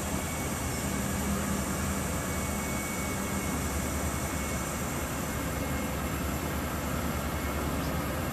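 Heavy diesel engine of a road-train prime mover hauling cement tankers, running with a steady low hum as it crawls slowly across a causeway, under a constant broad hiss.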